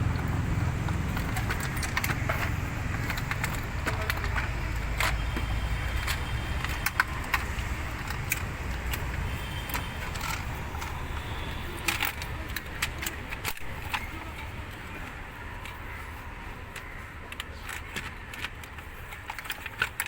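Metal tools and engine parts clinking and tapping at irregular intervals over a steady low rumble, during work fitting the valve cover and its gasket on a BMW petrol engine.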